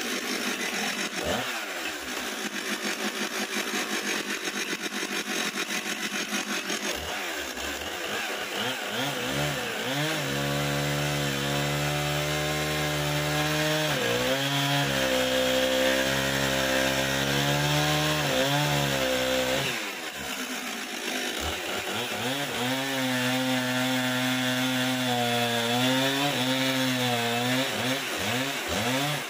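Husqvarna two-stroke chainsaw cutting through a hardwood log with a freshly sharpened chain. The engine runs low and unsteady at first, speeds up about seven seconds in, and holds steady high revs under cut, with a short drop about twenty seconds in before a second long cut.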